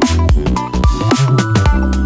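Electronic background music with a steady beat and heavy bass.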